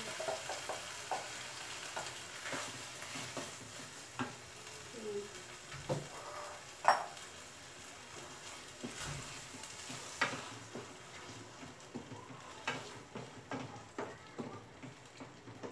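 Wooden spatula stirring pasta sauce in a hot frying pan: the sauce sizzles steadily under irregular scrapes and knocks of the spatula against the pan, the sharpest knock about seven seconds in.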